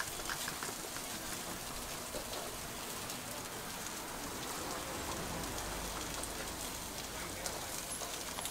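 Steady sizzling hiss of food frying on a teppanyaki hot plate, with faint scattered crackles and clicks.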